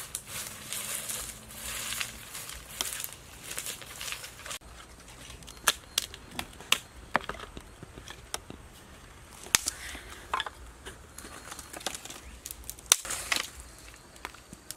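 Dry brush and leaves rustling, then irregular sharp clicks and knocks of dry wooden sticks being handled and set down on stones as they are stacked for a fire.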